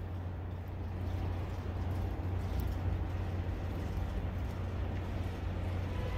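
Steady low rumble of city street ambience: distant traffic with a faint hiss over it.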